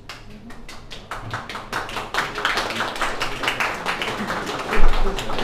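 A room audience applauding: a few scattered claps that swell into steady applause about a second in.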